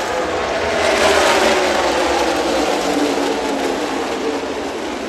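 A pack of NASCAR stock cars' V8 engines passing at speed, the mass of engine notes falling in pitch as the cars go by.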